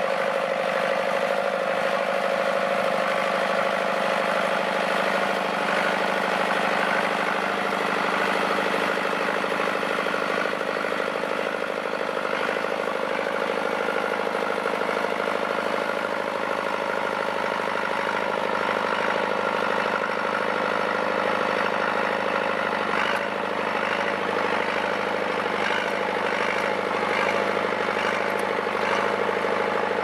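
DT-75 crawler tractor's diesel engine running steadily under load as its blade pushes through deep snow.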